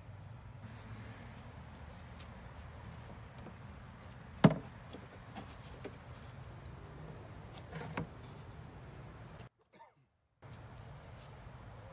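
Wooden knocks from handling the cedar smoker's door: one sharp knock about four and a half seconds in and a lighter one near eight seconds, as the door is shut and latched.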